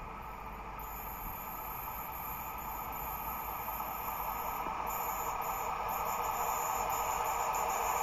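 Locomotive-hauled intercity passenger train approaching, its rumble of wheels on rails growing steadily louder.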